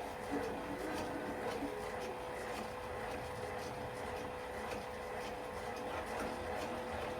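Rotimatic Next roti-making machine running: a steady mechanical hum with a constant tone and light clicks, as it cooks one roti while working on the next.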